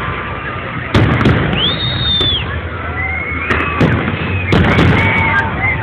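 Fireworks going off in a display: several sharp bangs, about a second in, again around three and a half and four and a half seconds, and near the end, over a low rumble.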